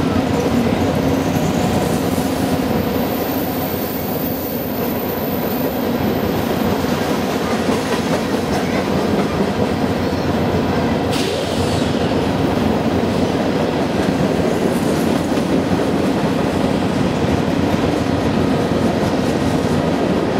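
Freight train of covered hopper cars rolling steadily past below, its wheels running continuously on the rails.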